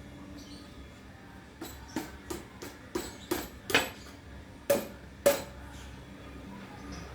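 About ten sharp metallic knocks and clicks at an irregular pace, the last two loudest and ringing briefly: tools and parts striking metal during hands-on work on a bicycle.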